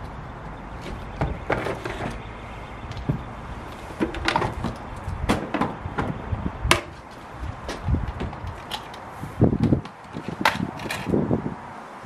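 Irregular wooden knocks and thumps as a Henry vacuum cleaner is lifted into a wooden shed and set down, its body and hose bumping against the shed's boards. The heaviest thumps come about three quarters of the way through.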